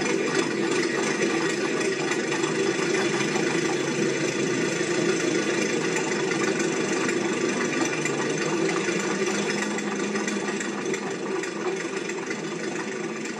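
A steady mechanical running sound, like a motor or engine, holding even throughout and starting to fade out near the end.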